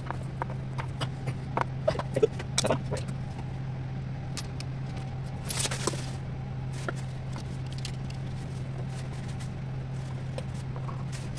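Metal parts and hand tools handled during machine repair: scattered clicks, taps and knocks, busiest in the first three seconds, with a short hiss-like scrape near six seconds in. A steady low electrical hum runs underneath.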